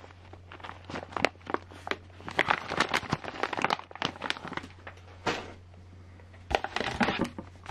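Clear plastic zip bags of kit parts crinkling and rustling as they are handled, in irregular crackles with a brief lull after about five and a half seconds. A steady low hum runs underneath.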